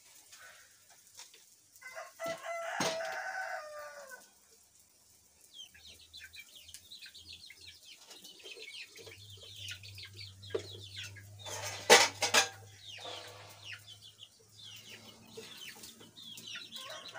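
Chickens: a rooster crows once about two seconds in, then chickens cluck and chirp with many short, quick calls through the rest. A single sharp knock, the loudest sound, comes about twelve seconds in.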